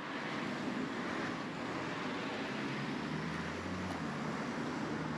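Steady outdoor road ambience of traffic and wind, with a low engine hum for about a second near the middle.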